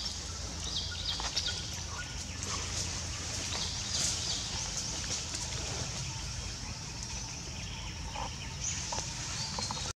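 Outdoor forest ambience: short, scattered bird calls over a steady high-pitched hiss.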